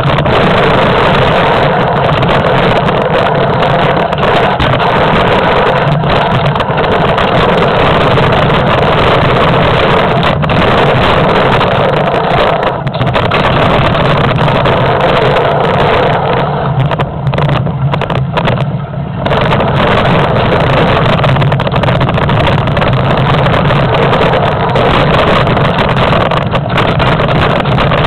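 Wind rushing over a mountain bike camera's microphone, with jolting rattle from the rough trail, during a downhill run. It is a loud, steady noise that eases briefly about two-thirds of the way through.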